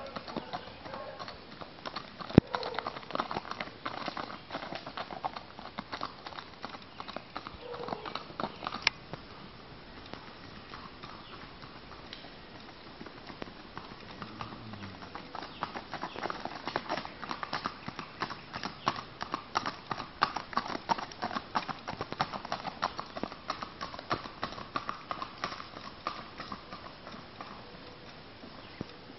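Hoofbeats of a Tennessee Walking Horse gelding, a steady run of rapid clip-clopping strikes that grows busier and louder about halfway through, with one sharp louder knock a couple of seconds in.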